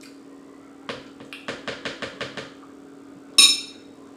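Lobster tail shell being cracked open by hand: a quick run of about eight sharp cracks. Then one loud, ringing clink of something hard striking a dish.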